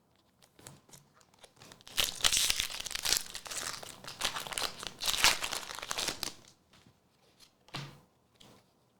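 Foil wrapper of a Pokémon Twilight Masquerade booster pack being torn open and crinkled: a dense crackling that starts about two seconds in and lasts about four seconds, with lighter handling ticks before and after.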